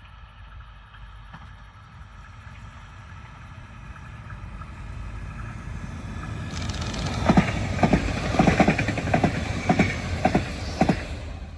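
A train approaching and passing on the rail line, growing steadily louder, then its wheels clacking over rail joints in quick groups of clicks from about seven seconds in.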